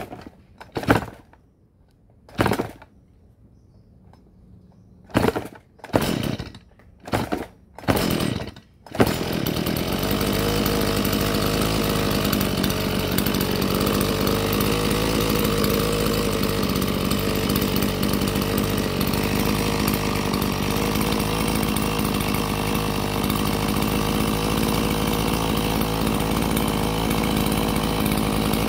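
Stihl two-stroke chainsaw being pull-started: about six short pulls of the starter cord over the first nine seconds, then the engine catches and runs steadily at an even speed.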